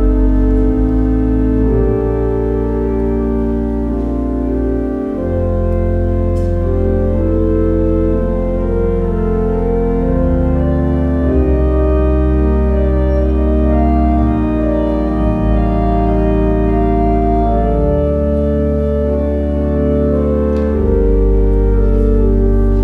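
Church organ playing slow, sustained chords over deep held bass notes that change every few seconds.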